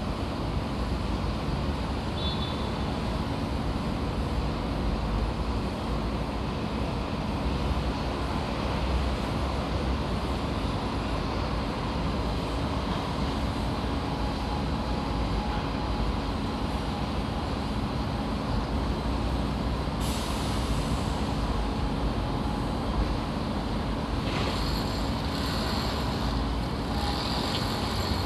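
Construction-site ambience: heavy engine-driven machinery running with a steady low rumble and hum. About 20 s in a hiss joins, and from about 24 s higher hissing and squealing sounds come and go.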